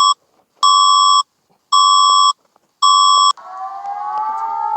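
Emergency alert tone: a shrill electronic beep repeating about once a second, four times. About three and a half seconds in, the beeping gives way to a different, louder tone that slides up in pitch and then holds steady.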